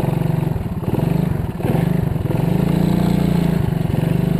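Motorcycle engine running and revving unevenly under load as it tries to tow a second, stalled bike across a river, the revs rising in the middle.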